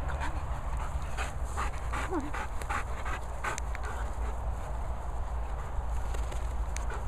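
Bernese Mountain Dog panting, with a run of quick breaths at about four a second in the first half.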